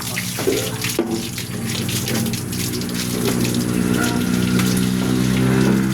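A machine's motor running with a steady low hum that grows louder, over a continuous rushing noise with scattered clicks.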